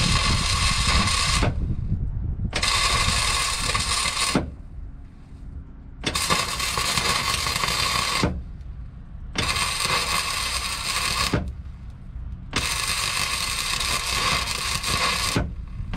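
Flux-cored wire-feed welding arc crackling and sizzling in five short runs of about two seconds each, broken by pauses of about a second. The welder is laying short runs to fill a gap against a backing plate.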